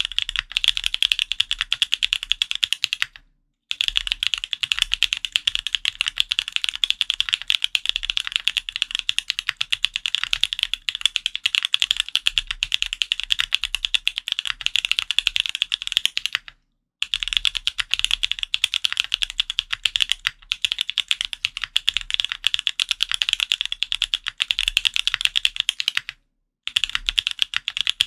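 Fast, continuous typing on a QK Neo65 custom 65% mechanical keyboard with lubed TTC Holy Panda tactile switches, a carbon fibre plate and Linworks Retro keycaps: a dense stream of key clacks. The typing stops abruptly three times, for about half a second each: about three seconds in, midway and near the end.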